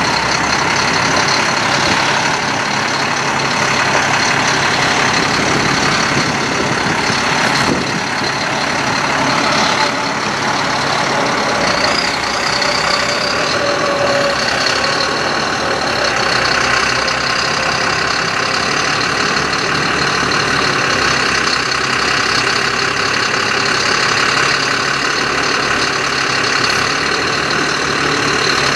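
2007 GMC C7500 forestry truck's diesel engine running steadily, with the PTO engaged to drive the hydraulics of the raised Terex Hi-Ranger XT-55 aerial boom.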